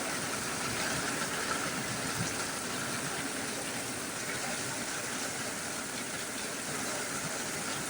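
Heavy thunderstorm rain pouring down, a steady hiss that doesn't change.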